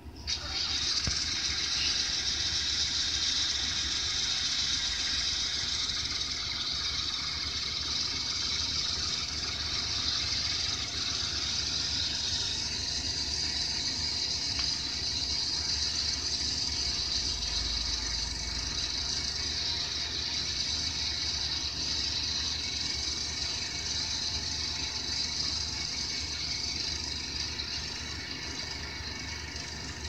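Wheel loader's diesel engine running steadily as it pushes snow with its bucket, with a steady hiss over it.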